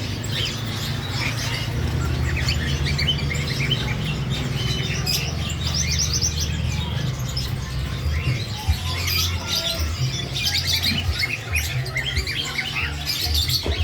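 Poksay mombay kepala merah, a laughingthrush, chirping over and over in quick short notes, over a steady low rumble.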